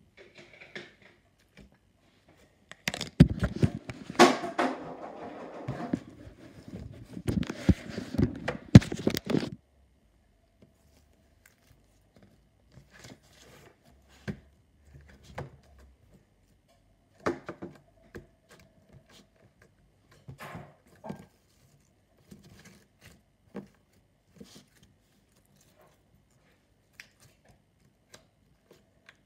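Close handling noise for several seconds: knocks, scrapes and rubbing right at the microphone. After that come sparse soft squelches, clicks and taps as green putty is kneaded and poked on a tabletop.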